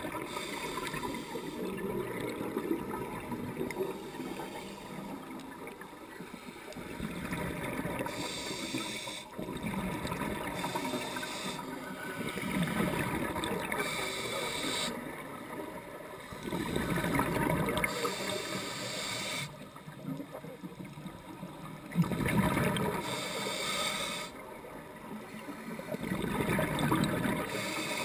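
Scuba breathing heard underwater: the regulator hisses on each inhale and the exhaled air bubbles up with a gurgling rumble, in slow cycles of a few seconds each.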